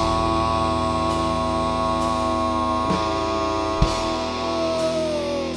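Live rock band: electric guitar and bass holding a sustained, ringing chord, with a few scattered drum hits. Near the end the guitar's held note slides down in pitch.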